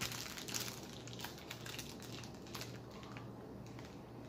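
Clear plastic sleeve around a rolled diamond-painting canvas crinkling and crackling as it is handled, a busy run of sharp crackles for the first two and a half seconds, then fewer and fainter.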